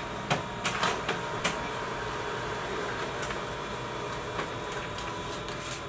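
HP Color LaserJet Pro M277dw colour laser printer running as it prints a demo page: a steady mechanical whir with a faint constant tone, and several sharp clicks in the first second and a half.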